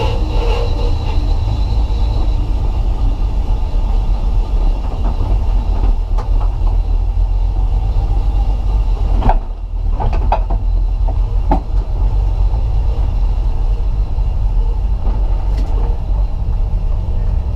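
Inside the cabin of a BMW E36 M3 at speed: steady heavy rumble of the straight-six engine and road noise. About nine and a half seconds in the level briefly drops, with a few clicks, then the rumble resumes.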